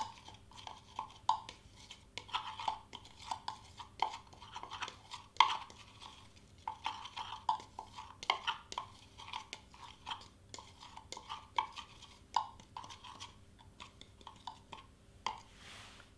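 Metal spoon stirring dry flock powder in a small clear cup, making quick irregular scrapes and light clicks against the cup's sides, thinning out near the end.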